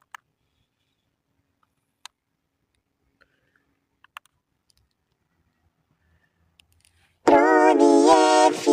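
A few faint scattered clicks, then about seven seconds in a loud, drawn-out vocal sound begins, wavering in pitch.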